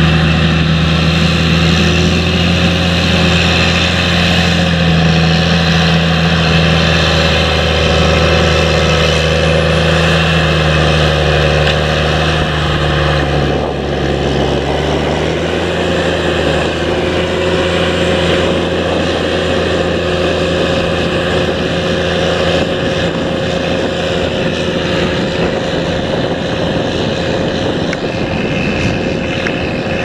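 Challenger MT765B rubber-tracked tractor's diesel engine running steadily under load while pulling a seven-furrow plough through the soil. The engine note dips briefly about halfway through, then settles slightly lower.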